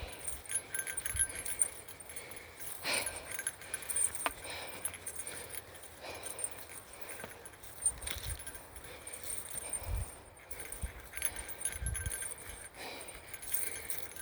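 Small bear bell jingling on and off as a hiker walks, with soft footfalls underneath.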